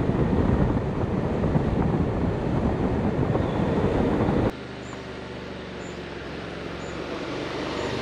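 Scooter riding at speed, heard mostly as loud wind rush over the microphone with road noise underneath. About four and a half seconds in it cuts to a quieter, steady engine hum that grows louder as a scooter approaches.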